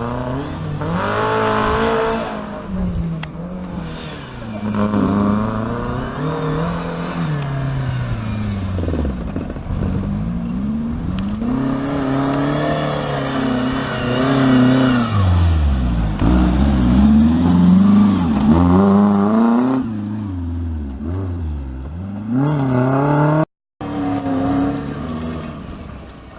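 Off-road 4x4's engine revving up and down again and again under throttle. The sound cuts out briefly near the end.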